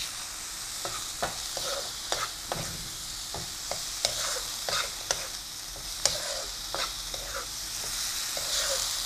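Ground masala sizzling in oil in a non-stick frying pan as it is sautéed, a steady hiss, with a spatula stirring and scraping against the pan in irregular clicks.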